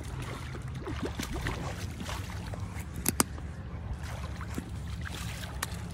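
Blue catfish flopping on wet concrete, with scattered light slaps and two sharp ones close together about three seconds in, over a steady low rumble and hiss.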